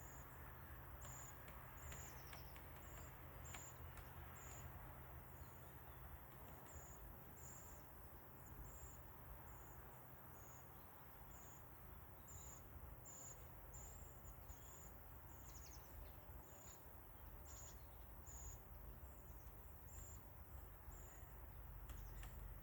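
Faint, short, high-pitched chirps from a small animal, repeating evenly about once a second, over a low steady hum.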